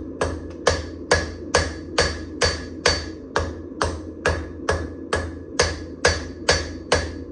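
Steel being hand-hammered on an anvil while forging a damascus knife blade: even blows at about two a second, each with a short metallic ring. A steady low hum runs underneath.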